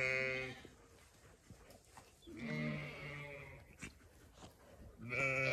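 Zwartbles sheep bleating: three drawn-out bleats of steady pitch, one tailing off about half a second in, another lasting about a second around the middle, and a third beginning near the end.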